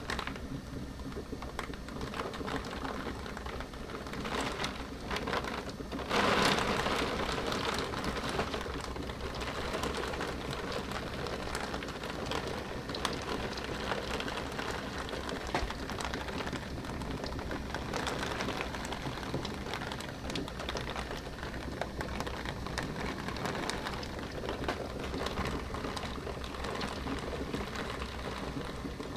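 Heavy rain from a thunderstorm beating on a window pane, a steady hiss with many small ticks of drops striking the glass. About six seconds in, a sudden louder surge fades away over a couple of seconds.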